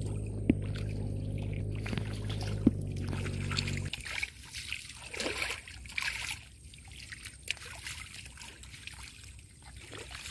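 Shallow river water trickling and sloshing as a fine-mesh fishing net is handled in it, with a few small splashes. A steady low hum with two sharp clicks runs under the first four seconds and cuts off suddenly.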